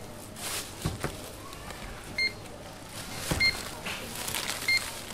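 Supermarket checkout barcode scanner beeping three times, one short tone each, as items are scanned, among knocks and rustles of goods being handled on the counter.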